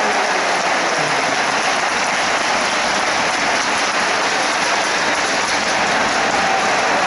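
Large arena crowd applauding steadily, a dense even patter of many hands clapping.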